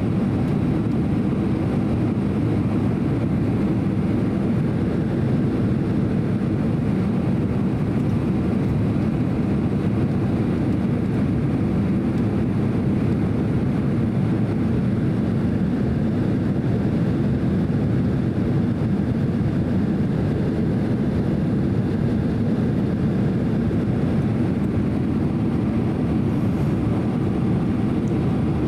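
Steady cabin noise inside a Boeing 767-300 airliner on its approach: an even, low rush of airflow and jet engine noise with no changes.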